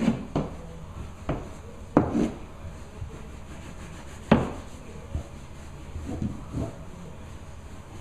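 Irregular knocks and rubbing from hard equipment being handled on the floor, with a sharp knock about two seconds in and the loudest one about four seconds in.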